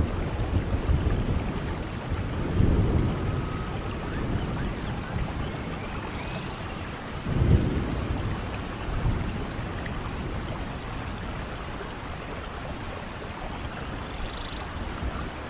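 Steady rain with rolling thunder. Deep rumbles swell several times, the strongest about halfway through, then die down to the rain alone.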